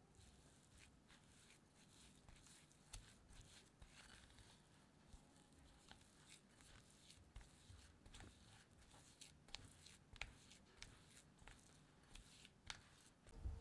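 Silicone spatula scraping and tapping against a glass bowl as it mashes softened butter and peanut butter into sugar. Faint gritty scrapes with scattered light clicks.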